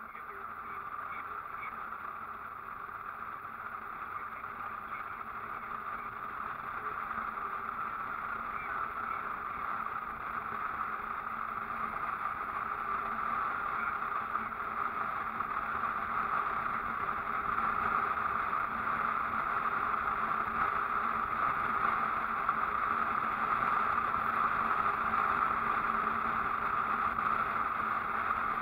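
Steady road and wind noise of a vehicle driving along a paved highway, with a faint steady low hum underneath, slowly getting louder.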